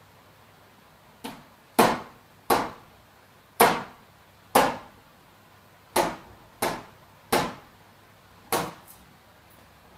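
About nine sharp knocks on the car's rear bodywork at uneven intervals, each ringing out briefly; the first is lighter.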